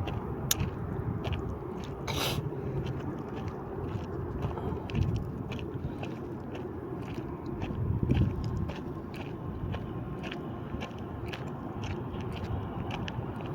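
Footsteps crunching and scraping on a dry trail, irregular clicks several times a second over a steady low rumble.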